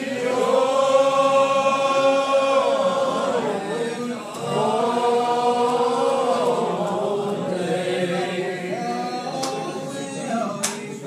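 Old Regular Baptist congregation singing a lined-out hymn in slow unison, each syllable drawn out into long notes that slide between pitches. One phrase dies away about three and a half seconds in and the next starts about a second later.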